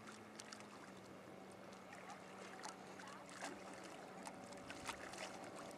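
Sailing yacht's auxiliary engine running as it motors away, heard faintly as a steady low hum, with light clicks of water lapping close by.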